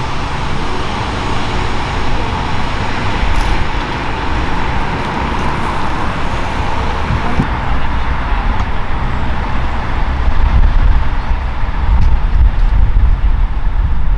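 Airbus EC135 helicopter with its twin Turboméca Arrius turboshaft engines running on the ground: a steady turbine whine over a constant rush of noise. The low rumble grows louder over the last few seconds.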